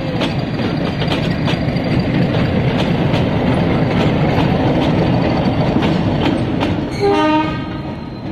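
Nilgiri Mountain Railway metre-gauge train, hauled by a YDM diesel locomotive, passing close by: a steady rumble with wheels clicking over the rail joints. About seven seconds in the locomotive gives one short horn blast, and then the sound fades as the train moves off.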